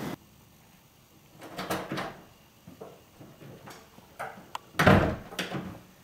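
A wooden interior door being opened and shut, with a few knocks and clicks from the latch and handle, and a loud thud a little before the end as it closes.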